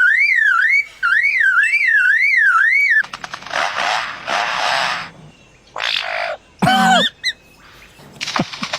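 A bird mimicking electronic sounds. For about three seconds it gives a siren-like warble that rises and falls about twice a second, like a car alarm. Then come hissing rushes, a quick swooping call, and a few clicks near the end.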